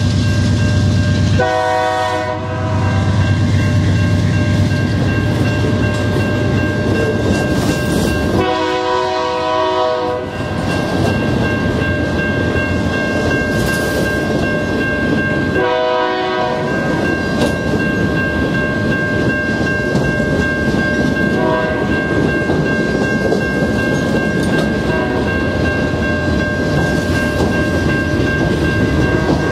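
Diesel freight train passing, led by a GE Dash 9-44CW locomotive sounding its Nathan K3LA chime horn in three blasts, a couple of seconds in, about eight seconds in and about sixteen seconds in, with a brief toot a few seconds later. Between the blasts, the steady rumble of the locomotive and the clatter of the cars on the rails.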